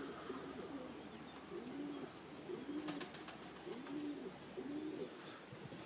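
Domestic pigeons cooing at the loft: a series of low, rising-and-falling coos, about one a second.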